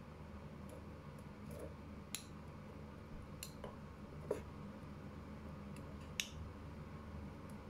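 Metal spoon clicking lightly against a glass jar several times as honey is spooned onto sliced ginger and lemon, three of the clicks sharper than the rest, over a steady low hum.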